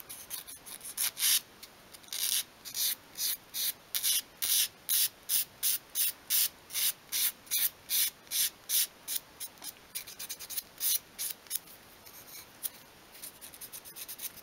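Sandpaper wrapped around a paintbrush end sanding a curve in a small piece of obeche softwood: quick, even back-and-forth strokes, about three a second, thinning to lighter, scattered strokes near the end.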